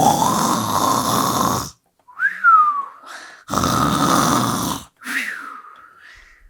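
A person imitating loud cartoon snoring: two noisy snoring breaths in, each followed by a whistle that rises and then falls away on the breath out.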